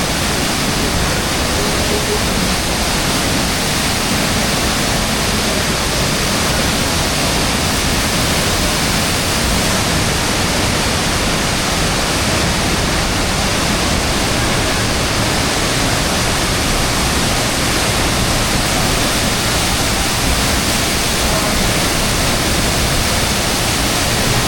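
Steady, loud rushing of falling river water, an even hiss that does not change.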